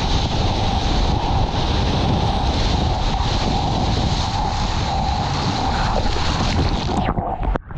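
Whitewater rushing and spraying around a surfboard riding a wave, mixed with heavy wind buffeting on an action camera's microphone. The noise is steady, then drops away abruptly near the end.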